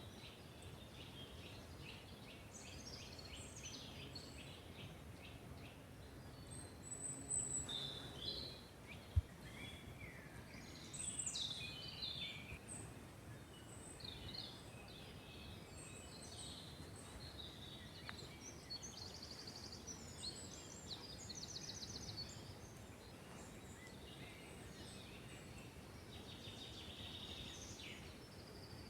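Several songbirds singing and calling in a forest, with whistles and rapid trills one after another, over a steady low rumble of background noise. A single short low thump about a third of the way in.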